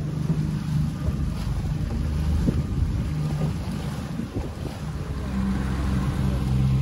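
Outboard motor running steadily as the boat moves along, its note shifting a little about five seconds in, with wind buffeting the microphone.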